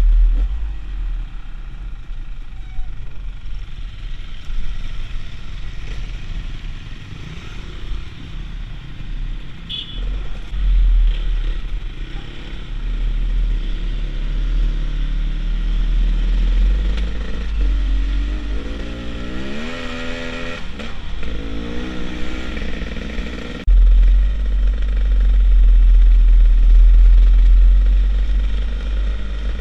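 Beta Xtrainer 300 two-stroke enduro motorcycle riding along, the engine revving up and down, with a heavy wind rumble on the microphone. The engine pitch climbs in several rising sweeps about two-thirds through, and the sound changes abruptly a little after.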